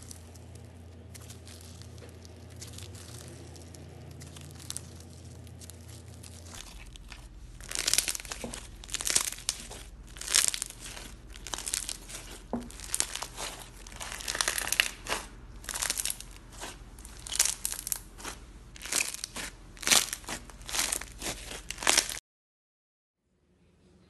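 Hands squeezing and kneading blue slime. A faint crackle gives way, about a third of the way in, to a run of loud crackling pops, one or two a second, as the slime is pressed. It stops suddenly near the end.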